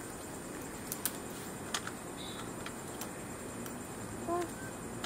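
Scattered light clicks and taps as small pieces of dried meat are handled in a small bowl beside a metal plate, over a steady faint hiss, with one short chirp about four seconds in.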